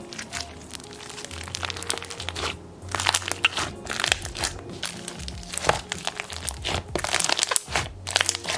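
Crunchy foam-bead slime being squeezed and pressed by hand, giving many quick, irregular crackles and pops, over background music.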